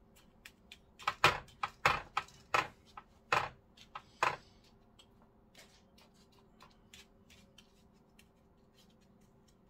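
Wooden tart tamper pressing crushed biscuit crumbs into a paper cupcake case: about seven sharp clicks and crackles between one and four and a half seconds in, then fainter ticks.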